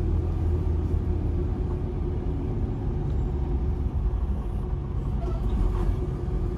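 Semi truck's diesel engine running with a steady low drone as the truck creeps along in slow traffic.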